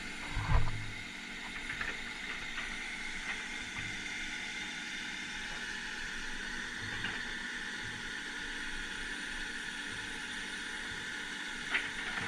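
Heavy earthmoving machine's diesel engine running steadily, with scattered short metallic knocks and clanks; the loudest comes about half a second in and another near the end.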